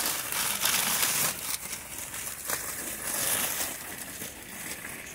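Newspaper wrappers being pulled and torn off grape bunches on the vine: irregular paper crinkling and rustling, loudest in the first second and a half.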